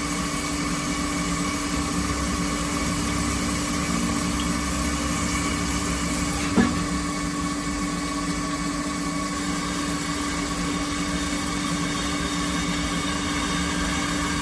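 Benchtop CNC milling machine's spindle running steadily, its end mill cutting a finned aluminium motor housing under flood coolant spray: a steady hum with a high whine over a wash of noise. A single sharp tick about six and a half seconds in.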